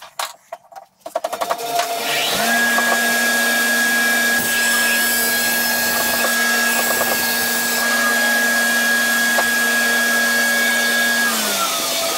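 Large bandsaw running, its blade cutting through a thick block of old barn-beam wood. A few knocks come first as the block is set; a steady motor hum with a higher whine sets in a couple of seconds in and drops in pitch near the end as it winds down.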